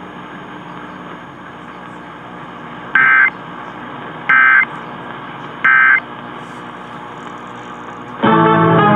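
Three short bursts of Emergency Alert System digital data tones over steady radio hiss. Each burst is a fast warble between two high tones, and the bursts come about a second apart: the end-of-message code that closes the required monthly test. Music starts near the end.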